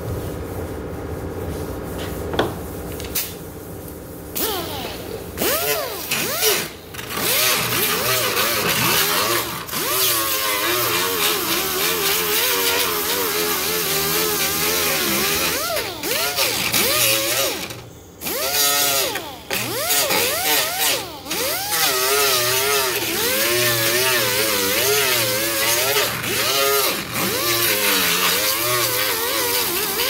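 Angle grinder grinding down a cured fiberglass mat-and-resin repair on a fiberglass car hood. The motor runs steadily for the first few seconds, then its pitch keeps dipping and recovering as the disc is pressed into the fiberglass, with a few short breaks where it is lifted off.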